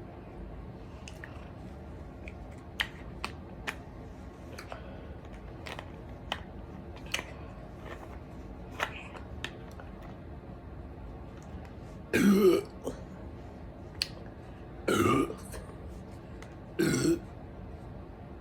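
A person burping three times, a few seconds apart, in the second half, each burp short and loud: gas coming up after chugging carbonated soda. Faint small clicks come before them.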